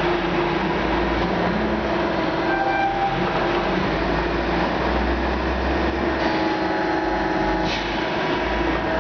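CNC press brake running a bend cycle as its ram comes down: a steady machine hum with a low rumble and a constant whine.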